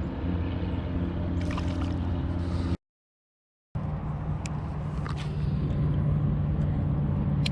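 Water sloshing and gurgling around a kayak, with steady wind rumble on the microphone. The sound drops out completely for about a second near the middle.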